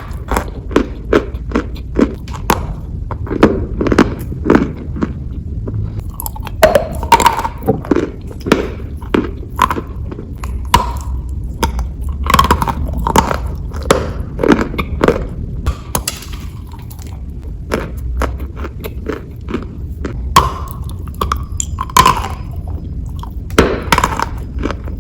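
Chalk being bitten and chewed close to the microphone: a dense, irregular run of sharp crunches and cracks.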